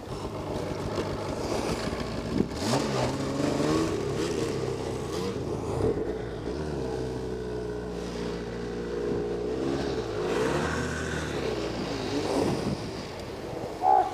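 Snowmobile engines running, their pitch rising and falling with the throttle as the sleds move along the trail. A short, loud thump comes near the end.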